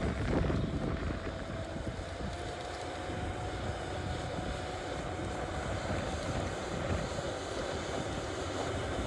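Plantma X forestry planting machine running as it works across the ground: a steady engine rumble with a steady whine over it that rises slightly in pitch over the first few seconds.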